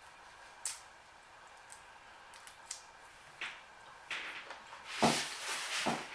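Close-up eating sounds of peeled shrimp and noodles: a few sharp clicks at first, then from about four seconds in a run of crackling and wet smacking from shrimp shells being peeled and the food being chewed, loudest about five seconds in.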